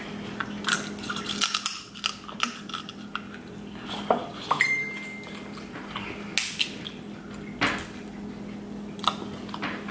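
Snow crab leg shells being cracked and snapped apart by hand and teeth: irregular sharp cracks and clicks, with a steady low hum underneath.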